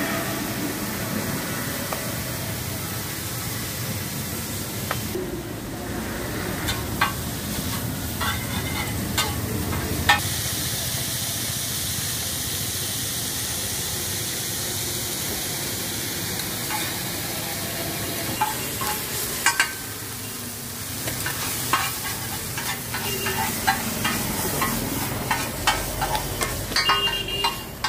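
Noodles frying on a large flat iron griddle, a steady sizzle. A metal spatula scrapes and taps against the iron in short clusters, several seconds in and again through the second half.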